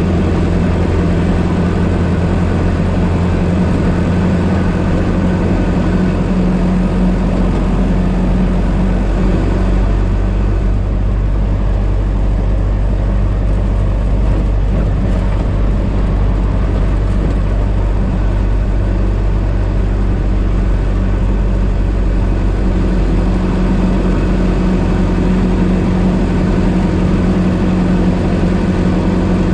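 The four-cylinder engine of a 1926 Ford Model T running as the car is driven. It holds a steady note at first, changes pitch and turns rougher through the middle, then settles back to a steady note for the last few seconds.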